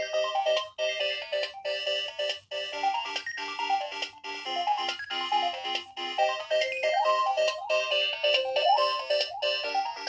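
A Nokia 2300 mobile phone's built-in ringtone plays a quick electronic melody of short, repeated notes. Several parts sound together, with a few quick rising slides past the middle.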